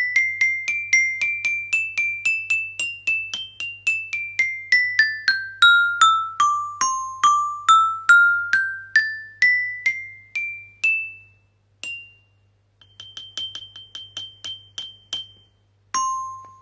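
Small metallophone (glockenspiel) with metal bars, struck one note at a time with a wooden mallet, about two to three notes a second. The tune steps up and down the bars, each note ringing briefly. After a short pause comes a fast roll of repeated strikes on one high bar for about two seconds, then a single lower note near the end.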